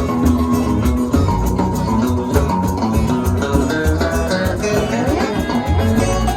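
Live Haitian twoubadou music: plucked guitar playing over a steady low bass beat, with light percussion.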